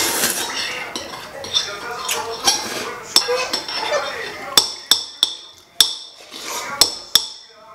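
Noodle soup being slurped from a bowl, then a metal spoon and chopsticks clinking against ceramic soup bowls, about seven sharp clinks spread over the second half.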